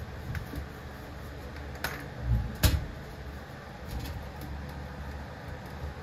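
Plastic clicks and knocks of hands working at a Lasko box fan's glued-on switch, with a low thump and then one sharp click about two and a half seconds in.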